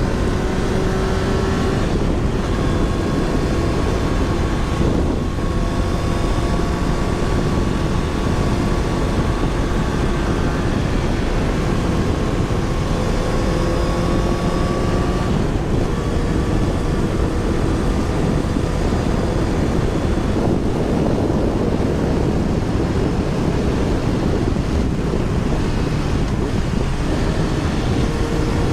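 Motorbike engine running under heavy wind noise on a helmet-mounted microphone while riding. The engine note climbs gradually and drops back a few times.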